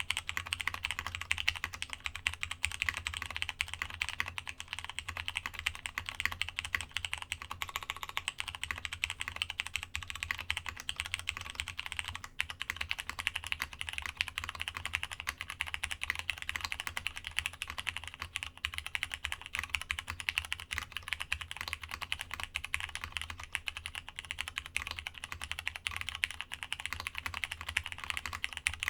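Continuous fast typing on a Masjewerke K-III custom mechanical keyboard with plateless Cherry MX Brown tactile switches and a brass internal weight: a dense, steady patter of keystrokes. About a third of the way in, after a brief break, the keycaps change from DCS to GMK profile, and the clicks lose a little of their top edge.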